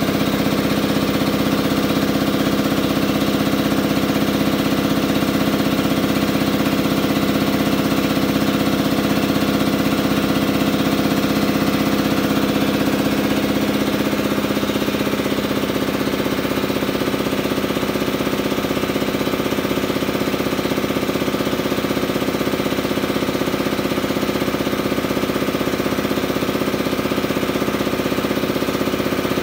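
Ingersoll-Rand Type 30 two-stage, air-cooled piston air compressor running, driven by its 5 hp electric motor: a steady hum with a fast, even pulsing, its tone shifting slightly about halfway through.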